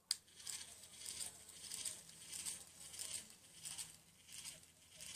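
Jammed motor mechanism inside a battery-powered Buzz Lightyear toy, straining without moving. After a sharp click at the start it makes a faint scratchy rasp about twice a second: a sign that the motor is stuck.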